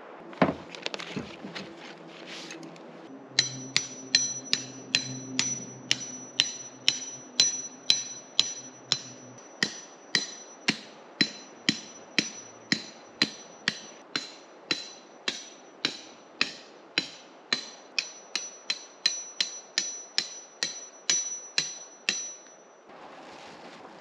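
Hammer driving tent stakes into the ground with steady, even strikes about two a second and a steady high ring over them.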